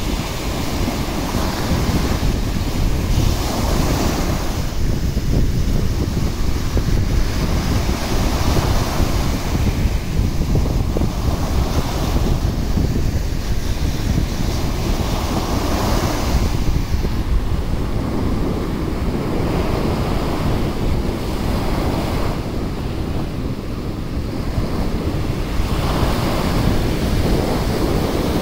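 Gulf of Mexico surf breaking and washing up the sand, with swells of hiss every few seconds as each wave runs in, over a steady low rumble of wind on the microphone.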